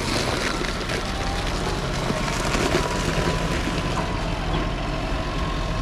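Diesel engine of a farm tractor running steadily as it drives past close by with its reversible plough lifted, a constant low hum with a faint steady whine above it.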